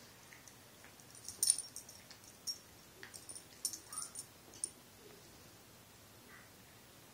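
Small dogs play-wrestling on a bed: collar tags jingling in short scattered rattles, mostly in the first half, with scuffling on the bedding and a faint brief dog whine.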